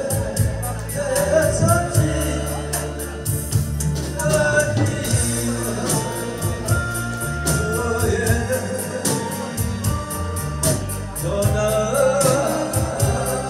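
A man singing a slow Korean song into a microphone over band accompaniment, with drums keeping a steady beat under bass and keyboard.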